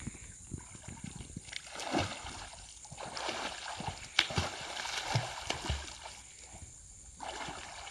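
Creek water splashing and sloshing in irregular bursts as a person ducks under and swims beneath the surface.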